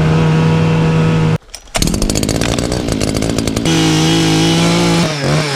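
Gas-powered ice auger's small two-stroke engine running at a steady pitch. It cuts out briefly about a second and a half in, then runs again with a rapid even chatter before settling back to a steady note, and its pitch sags near the end.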